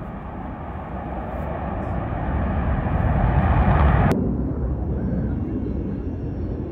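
Jet noise from the Blue Angels' four F/A-18 Super Hornets flying in diamond formation: a loud, broad rumble that swells for about four seconds. It then cuts off suddenly, leaving a quieter, duller rumble.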